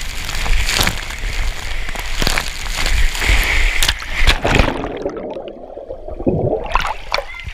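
Water rushing down a water slide and splashing into a pool. About two-thirds of the way through the sound turns muffled and bubbly as the microphone goes underwater, and splashing returns near the end as it breaks the surface.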